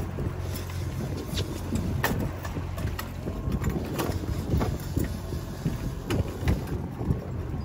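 Fishing boat's engine running steadily, with irregular knocks and clicks on board over it.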